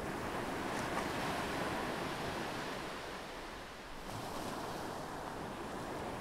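Sea surf: waves breaking and washing up a beach, a steady rushing hiss that dips briefly about four seconds in.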